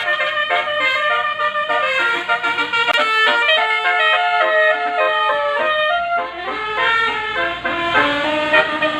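Bus basuri telolet horn playing a quick melody in stepped notes, several horn tones sounding together. A low rumble joins about six seconds in.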